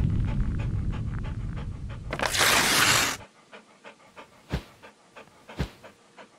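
A low rumble fades out, and about two seconds in there is a one-second rush of noise like a swoosh. Then a dog pants in short, quick breaths, about three a second.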